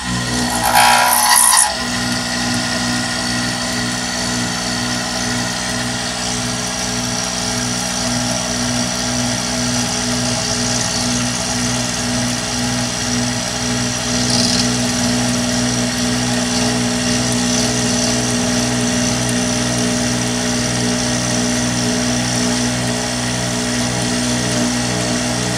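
Paulimot F207 bench milling machine running, its end mill cutting along an aluminium bar: a steady motor drone that pulses evenly, with a high cutting hiss over it. About a second in there is a short, louder harsh burst of noise.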